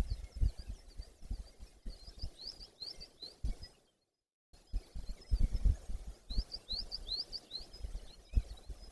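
Two runs of short, high, upward-sweeping bird chirps, over low thumps and rumble on the microphone. The sound cuts out completely for about half a second partway through.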